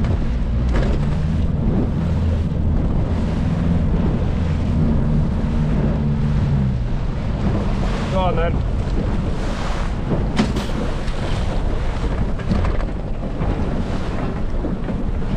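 Outboard motor running as a small open boat motors along through choppy water, with wind buffeting the microphone and water rushing past the hull. The engine's steady drone is clearest in the first half.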